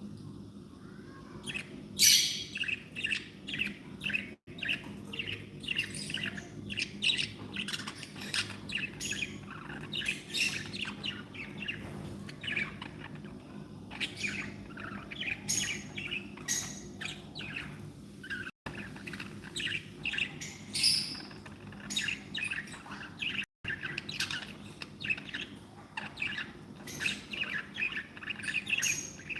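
Budgerigars chirping and chattering: a busy run of rapid, short, high calls that starts about two seconds in, over a steady low hum.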